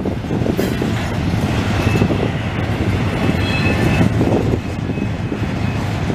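Double-stack container train's well cars rolling past: a steady rumble of steel wheels on the rails, with a faint high wheel squeal around the middle.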